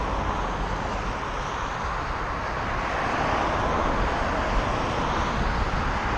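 Highway traffic passing close by: a steady wash of tyre and road noise from cars going past, swelling a little in the middle.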